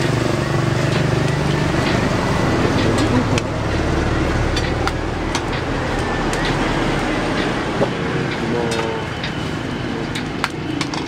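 Steady street noise with a motor vehicle engine running nearby, its low rumble swelling about four seconds in, with faint background voices and scattered light clicks.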